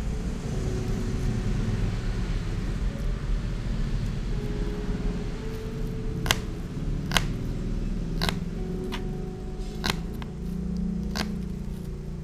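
Kitchen knife tapping against a plastic cutting board while slicing small red onions: about seven sharp, irregular clicks starting about halfway in. A steady low rumble runs underneath.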